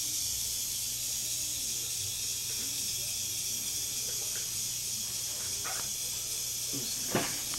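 Steady high-pitched background hiss over a low steady hum, with a sharp click about seven seconds in.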